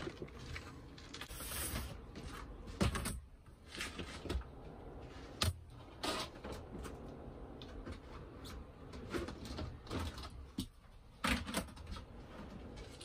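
Plastic storage boxes and stock being moved about and set down: a string of knocks, scrapes and rattles, with sharper knocks about three, five and a half and eleven seconds in.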